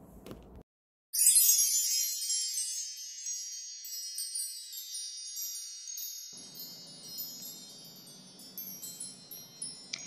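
Sparkling chime sound effect: a cascade of many high tinkling notes starts suddenly about a second in, loudest at the start, and slowly fades away.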